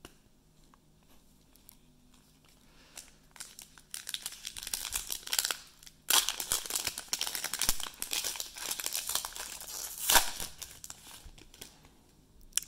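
A trading-card pack's wrapper being torn open and crinkled, in two spells of crinkling about four and six seconds in, after a quiet start.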